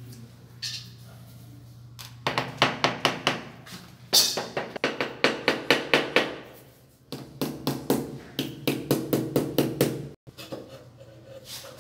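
Rubber mallet tapping fast on a ceramic wall tile at the aluminium-trimmed edge of a shower niche, about five knocks a second, in three runs with short pauses and a few more taps near the end.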